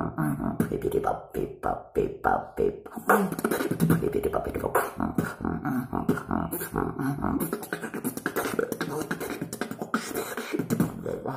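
A man beatboxing: a quick run of sharp percussive clicks over low pitched bass tones.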